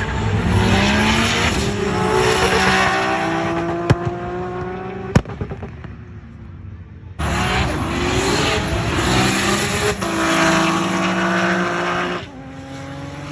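Nissan GT-R cars at full throttle on a race track, engine note rising in pitch through the gears as they run past. There are two such runs; the second cuts in suddenly about seven seconds in.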